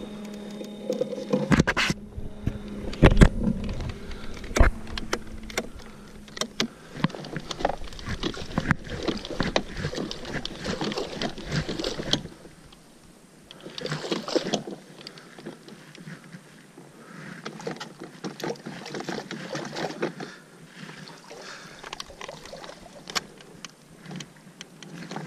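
Minn Kota Edge 45 bow-mount electric trolling motor humming for the first several seconds, with a run of sharp clunks and knocks from the motor and its mount being handled. After that comes a long stretch of rustling and scraping as the boat pushes through thick floating weeds.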